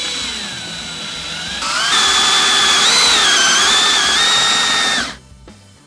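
DeWalt cordless drill with an Irwin step bit boring a hole through a refrigerator door. Its whine sags in pitch under load at first, then runs louder and steady with a slight wavering, and stops suddenly about five seconds in.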